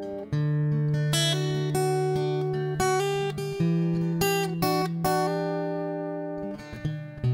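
Background music: acoustic guitar playing plucked notes over long held low notes.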